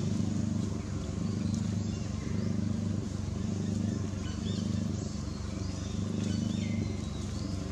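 A few short, high squeaks from young macaques wrestling, over a steady low mechanical hum.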